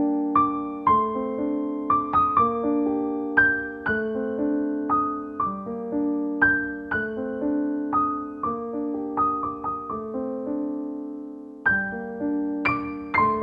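Background piano music: a slow melody of struck notes ringing out over held chords. The notes die away briefly about ten seconds in before the tune picks up again.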